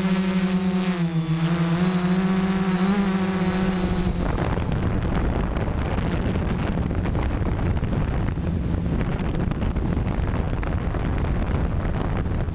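DJI F550 hexacopter's motors and propellers buzzing in flight, heard from the GoPro mounted on the frame; the pitch dips and wavers briefly in the first few seconds as the throttle changes. About four seconds in, the steady buzz gives way to rough wind buffeting on the microphone, with the motor tone fainter underneath.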